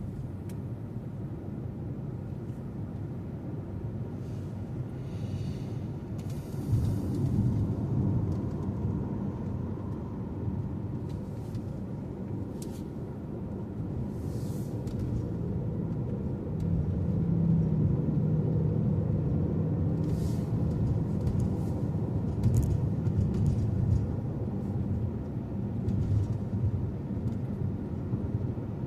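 Car driving along a road: a steady low rumble of engine and tyres, swelling somewhat about two-thirds of the way through, with a few brief hisses over it.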